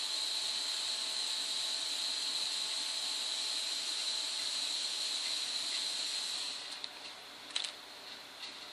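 Shimpo VL-Lite pottery wheel turning while wet, slip-covered hands shape a spinning clay bowl: a steady wet hiss with a thin high whine. The hiss eases off about six and a half seconds in, followed by a few light clicks.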